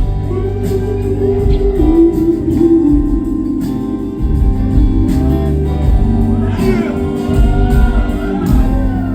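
Live band music: electric guitar, bass and drums playing a steady groove, with a voice singing over it in the later part.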